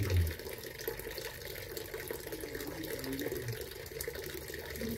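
Small garden fountain with water trickling and splashing steadily.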